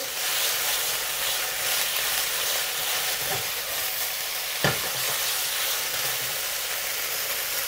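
Sliced pork and chopped garlic sizzling steadily in hot oil in a wok as they are stir-fried with a spatula, the garlic frying until fragrant. One sharp knock about four and a half seconds in.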